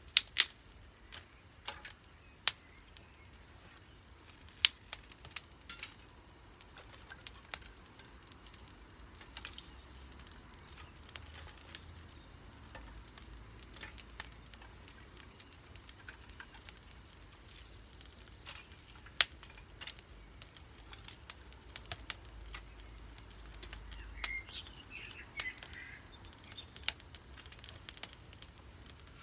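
Wood fire of kindling and feather sticks crackling in a fire pit, with irregular sharp pops, a few of them loud. A bird chirps a few times near the end.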